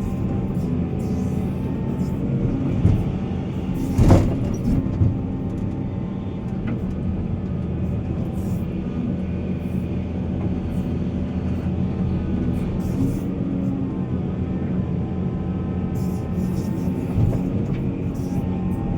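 Heavy diesel mining machinery running steadily at a constant pitch, with a loud clank about four seconds in and a few lighter knocks around it.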